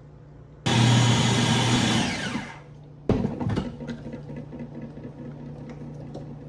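Food processor motor running in one short burst of about a second and a half as it purées potato soup, then winding down with a falling whine. About three seconds in, a knock, followed by a spatula scraping the plastic processor bowl.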